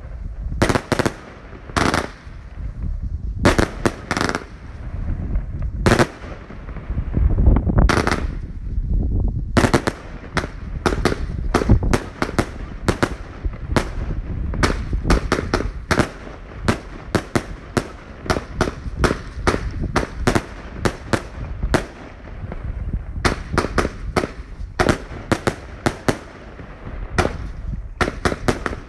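Hypnotic firework battery firing a run of sharp bangs. The shots are spaced out at first, with a deep rumble between them, then come several a second for most of the rest.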